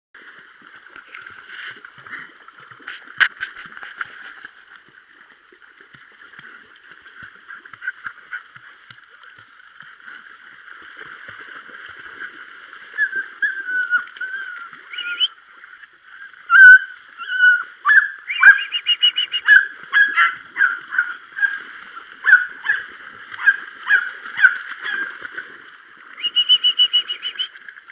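Small Munsterlander puppies whining, breaking about two thirds of the way through into a quick run of high yelps, two or three a second, several falling in pitch, and ending with one held whine.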